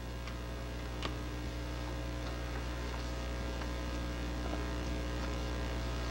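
Steady electrical mains hum on the recording, with a faint click about a second in.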